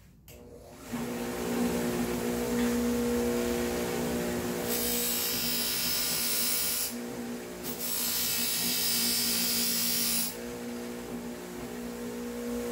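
Electric buffing motor spinning up and running with a steady hum. A steel lopping-shear blade is pressed to the spinning buffing wheel twice, each pass a hissing whir of two to three seconds, lightly taking the burr off the cutting edge.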